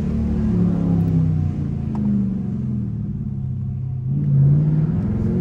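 Straight-piped 5.7-litre HEMI V8 exhaust of a 2021 Dodge Durango R/T, heard from inside the cabin while driving. The exhaust drone falls in pitch as the revs drop, then rises again about four seconds in as the SUV accelerates.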